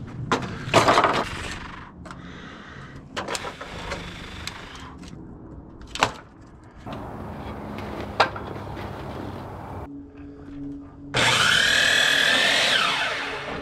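A DeWalt compound miter saw starting up and cutting through a wooden board, its whine rising, holding through the cut, then falling away as the blade winds down near the end. Before it, a few knocks and clicks of lumber and a tape measure being handled.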